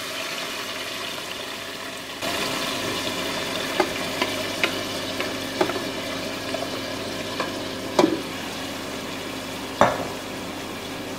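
Marinated mutton sizzling and frying in hot oil in an aluminium pressure cooker as it is scraped in and stirred. The steady frying hiss grows louder about two seconds in, with a few sharp knocks against the metal cooker.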